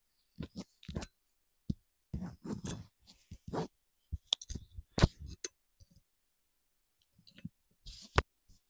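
A silicone spatula scraping and tapping against a metal baking pan and a wire cooling rack as baked pizza pockets are lifted off parchment paper and set down. The sound is a string of short clicks, scrapes and knocks, the sharpest about five seconds in and another near the end.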